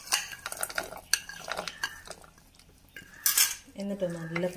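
Wooden spatula stirring thick masala in a pan: scrapes and knocks against the pan, with a louder scrape about three seconds in.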